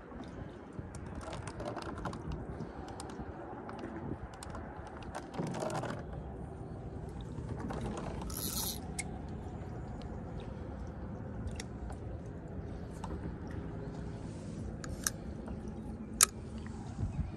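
Scattered clicks and light knocks of a spinning reel and fishing rod being handled, with a few sharper clicks near the end, over a steady low background noise.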